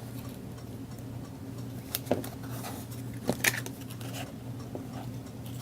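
A few faint, light clicks and rustles of craft supplies being handled, over a steady low hum.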